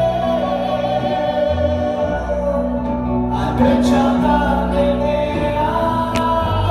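Live Christian worship music: a singer on a microphone holding long, wavering notes over steady sustained instrumental accompaniment.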